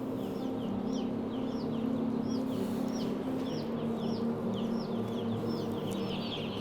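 A shed full of broiler chicks about two days old peeping continuously, many short high chirps a second overlapping, over a steady low machine hum.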